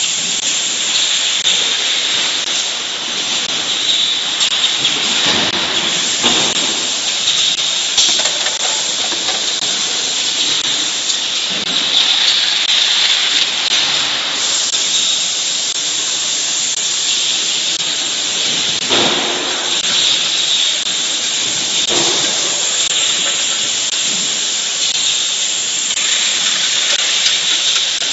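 Steady hissing noise of an automatic edible oil bottling and carton-packing line, with occasional brief knocks and clatter from the machinery.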